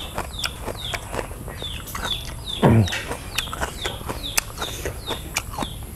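Close-up rhythmic chewing with wet mouth smacks, about two or three a second, as spotted babylon snail meat is eaten. A short low hum from the eater comes about halfway through.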